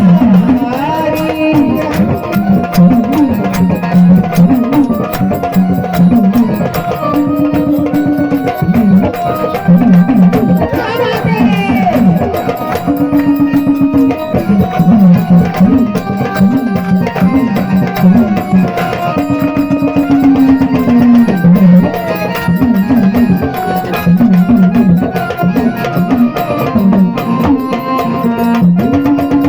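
Instrumental interlude of a Marathi devotional folk song: a wavering melody line over a fast, steady hand-drum rhythm, with no singing.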